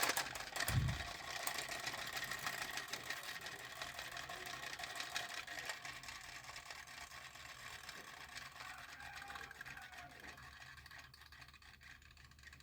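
Toy army helicopter's mechanism whirring with a fast, buzzy rattle after being run by hand, slowly dying away over several seconds.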